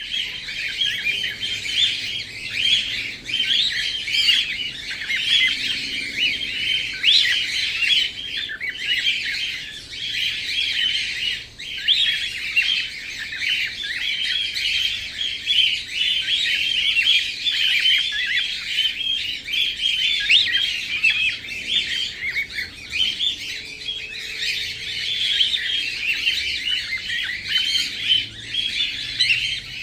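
Cockatiel mating call: a dense, unbroken stream of rapid, high-pitched chirps and squawks, with two brief pauses about a third of the way in.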